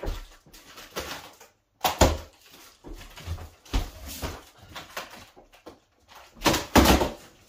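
Corrugated cardboard flaps of a large box being pulled open and bent back: irregular scraping and rustling of cardboard, loudest about two seconds in and again near the end.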